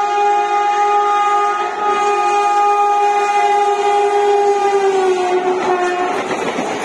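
WAP-4 electric locomotive sounding a long, steady horn blast as it approaches at speed. Near the end the horn's pitch drops slightly as the locomotive passes, and the horn gives way to the rushing noise of the coaches going by.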